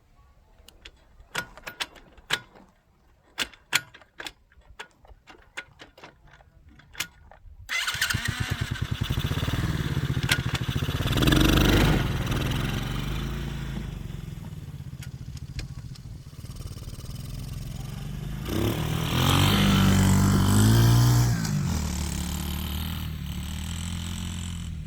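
Several sharp clicks, then about eight seconds in a small four-stroke ATV engine starts, runs and is revved up twice, briefly each time.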